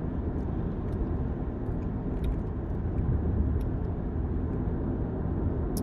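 Steady road and engine rumble heard inside a moving car's cabin, with a few faint clicks.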